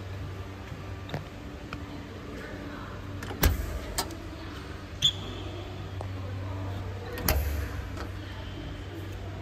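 Sheet-metal doors of a silent generator set's soundproof enclosure being unlatched and swung open: four sharp metallic clacks, the loudest about three and a half seconds in, over a steady low hum.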